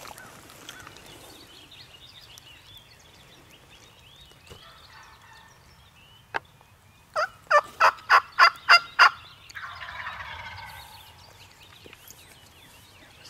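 Turkey calling: a single sharp note, then a run of about seven loud yelps at roughly four a second, followed by a softer rolling gobble lasting about a second and a half.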